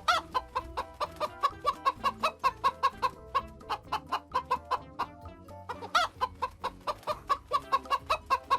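Hen clucking in a fast, even series of short clucks, with a louder squawk at the start and another about six seconds in.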